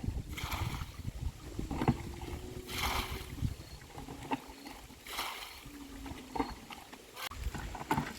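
Water splashing and sloshing in short, irregular bursts every second or two, with a few sharp knocks between them.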